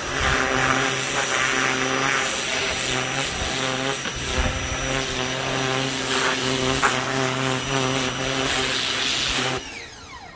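Ryobi 1600 PSI electric pressure washer running, a steady motor-and-pump hum under the hiss of the water jet spraying against a car. It cuts off near the end, and the motor winds down in a short falling whine.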